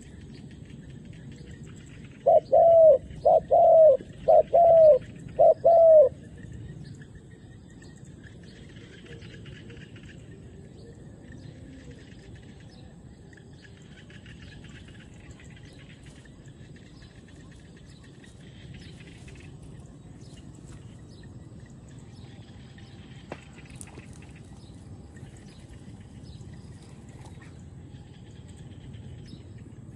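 Spotted dove cooing: a run of five loud, evenly spaced coo notes about two to six seconds in, over faint chirping of small birds.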